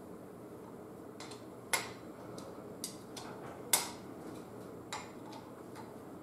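Scattered sharp metal clicks and taps of a T-handle hex driver and hex key working the bolts of a steel diff cover, as the bolts are run in and snugged by hand. Two louder clicks come about two and four seconds in.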